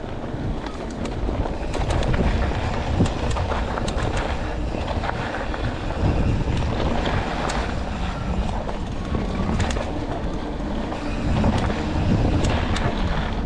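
Mountain bike riding down a dirt trail, heard from an on-board GoPro: a steady rumble of wind on the microphone and tyres rolling, with frequent sharp rattles and knocks from the bike over bumps.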